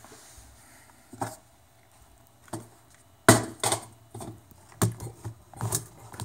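Handling noise from a camera being picked up and moved: a series of sharp knocks and bumps, sparse at first and coming more often from about three seconds in.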